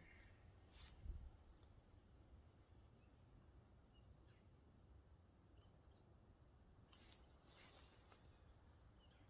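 Near silence: a faint low rumble with a few faint, short bird chirps and a couple of soft rustles.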